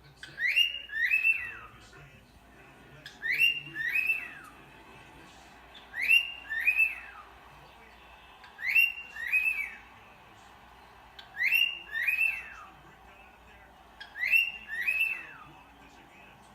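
Male cockatiel whistling a repeated two-note phrase, each note swooping up and then falling away. The phrase comes six times, about every two and a half to three seconds.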